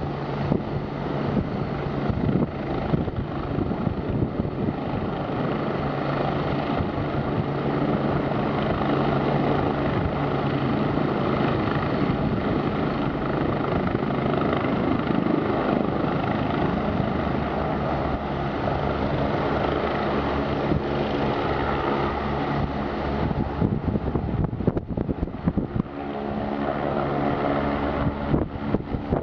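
AgustaWestland AW109 twin-turbine helicopter lifting off from the pad and climbing away, its rotor and turbines running with a steady drone. Near the end the note changes and a clearer pitched hum comes through as it flies off.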